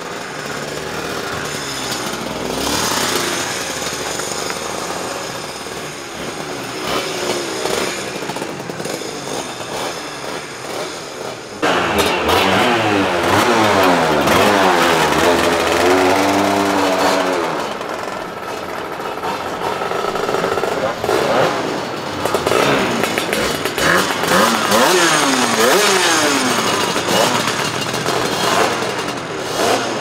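Several superkarts' two-stroke engines running and revving at low speed, their pitch rising and falling with each blip of the throttle. Louder from about twelve seconds in.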